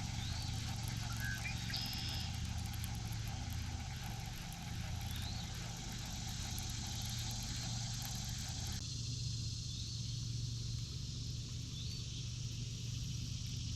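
A boat motor running with a steady low hum, with faint short chirps recurring every couple of seconds.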